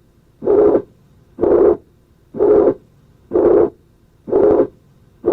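Heart sounds of mitral regurgitation due to ruptured chordae tendineae: a very loud, harsh systolic murmur that repeats with each heartbeat, about once a second, with quiet gaps between the beats.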